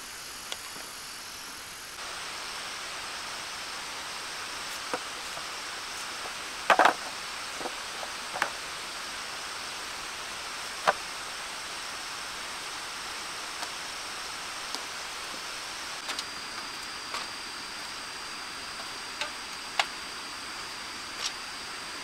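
Sparse knocks and taps of wood and bamboo being handled, the loudest a double knock about seven seconds in, over a steady outdoor hiss with a thin high whine.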